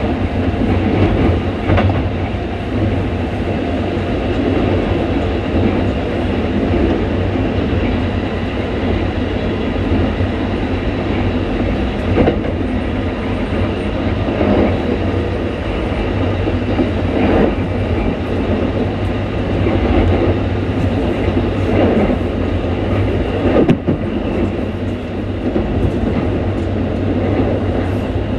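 Keikyu train set 1485 running at speed, with a heavy, deep low drone from its traction motors and short rail-joint clicks every few seconds. The motor sound is louder than Toyo-built motors and has a character typical of Mitsubishi motors, which the owner suspects have been fitted.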